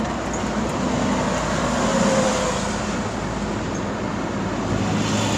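Steady vehicle noise, a loud rushing rumble with a low hum, that cuts off suddenly near the end.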